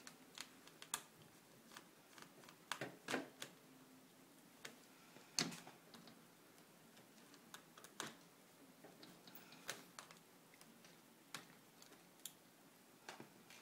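Faint, irregular small clicks and taps of a screwdriver and fingers working at a laptop's screen hinge and plastic frame, the sharpest about five and a half seconds in.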